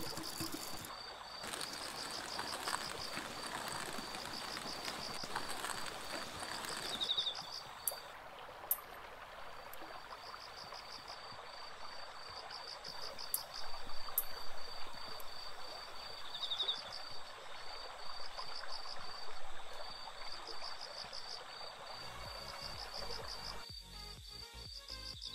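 Insects chirping in rhythmic pulsing trills over the steady rush of a stream. The water is louder for the first several seconds.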